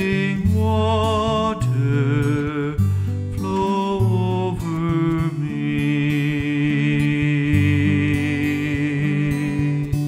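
A man singing to his own acoustic guitar, his voice wavering with vibrato over plucked bass notes, then holding one long note through the second half.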